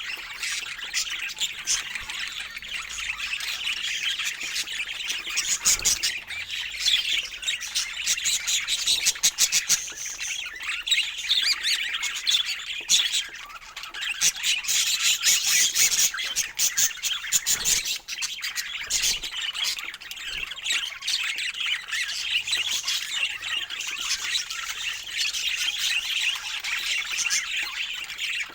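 Budgerigars chattering and chirping without a break, a dense mix of squawks, warbles and rapid clicking notes.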